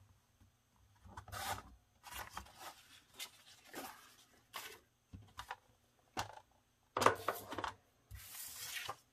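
Patterned paper being cut on a Fiskars sliding paper trimmer and handled on a cutting mat: a series of short rustling, rubbing scrapes, with sharp knocks about six and seven seconds in and a longer scrape near the end.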